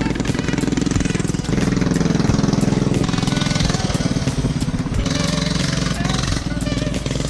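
Predator 212cc single-cylinder four-stroke engine on a mini bike running under way, with engine speed and loudness rising about a second and a half in and easing again around three seconds.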